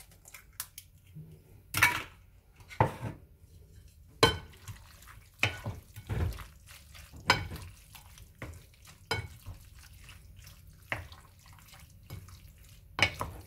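Wooden spoons knocking and scraping against a glass mixing bowl while eggs are stirred into a mixture of cooked leeks and vegetables. The knocks and clinks come irregularly, roughly one a second.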